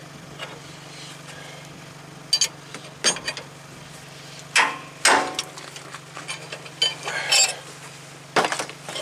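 Sharp metal clinks and pops, about seven of them spread out with the loudest pair about five seconds in, from wrenches working the screw of a ball joint press on a truck's steering knuckle as the press forces the seized ball joint out. A steady low hum runs underneath.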